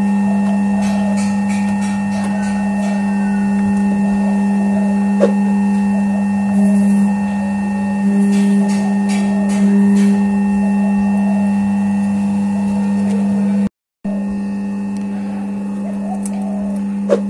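Cashew-shell oil press machine running with a loud, steady hum and a few sharp clicks.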